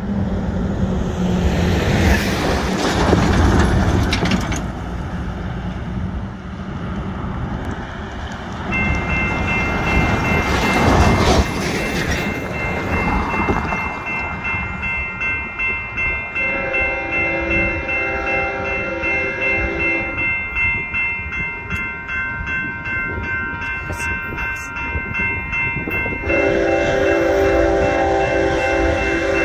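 Wind and passing road traffic, then a grade-crossing warning bell starts ringing fast and steadily about a third of the way in as the signals activate. An approaching intermodal freight train's horn blows a long blast past the middle and starts another near the end.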